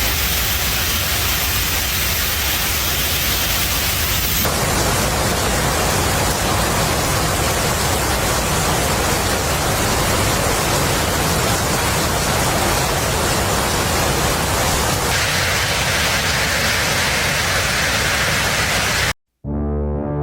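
Heavy hail and rain pelting down in a dense, steady noise, its character shifting twice as one recording gives way to another. Near the end it cuts to a moment of silence and music begins.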